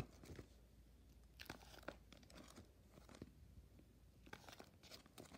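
Faint crinkling and ticking of clear plastic binder sleeve pages as a page of trading cards is handled and turned, in short scattered rustles.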